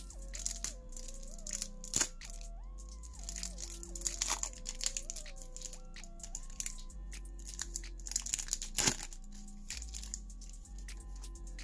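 Thin plastic packaging crinkling and crackling in short bursts as a sticker is pulled from its clear plastic sleeve, with two sharper cracks about two and nine seconds in. Background music with a simple melody and bass plays underneath.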